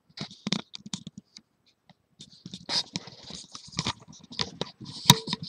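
Handling noise from a handheld camera as it is swung around: irregular clicks, rubs and scrapes, with a short lull about a second and a half in and one sharper click near the end.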